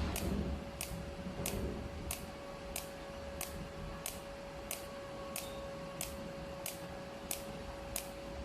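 Cold TIG (pulse spot) welder firing on thin 0.7 mm steel sheet: a sharp tick with each arc pulse, evenly about one and a half a second, over a steady whine from the machine.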